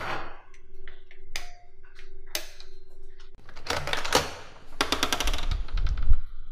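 A door latch and handle rattling in a fast run of clicks as a door is opened, with a dull thump near the end.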